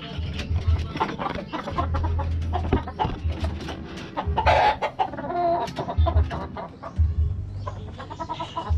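Chickens clucking, with many short clicks and knocks and a low rumble that comes and goes.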